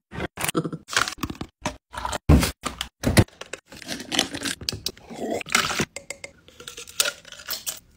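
Thin plastic cup crackling and scraping against a block of ice as the ice is worked free of it: a string of irregular sharp cracks and scrapes, broken by short abrupt silences.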